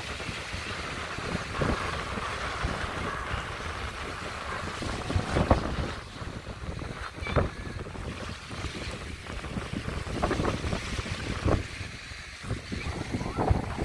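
Small waves lapping and washing on a sandy shore, with wind buffeting the microphone in gusts. There are a few brief louder splashes, the strongest about five and a half and seven and a half seconds in.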